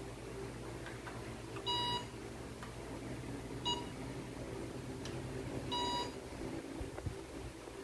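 LYZRC L900 GPS drone's electronic status beeps while it is being unlocked, its motors not yet spinning: three short beeps, a longer one, a brief one, then another longer one.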